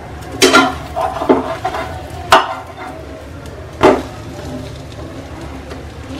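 Slotted metal spatula knocking and scraping against a non-stick frying pan as a bread egg omelette is flipped over and pressed down, with four sharp knocks in the first four seconds.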